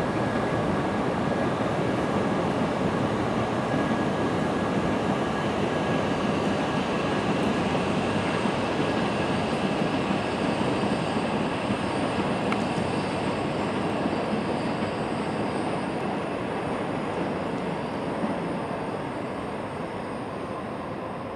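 E5 and E6 series Shinkansen trainset pulling out of the station and accelerating, a steady rumble of the train with a whine that rises in pitch as it speeds up. It fades over the last few seconds as the train draws away.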